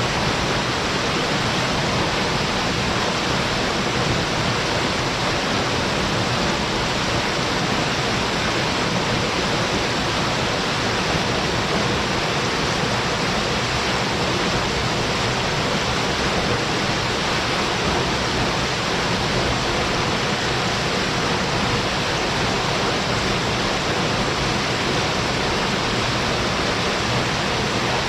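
Waterfall: a low but forceful fall of water pouring into its plunge pool, a steady, unbroken rush of water.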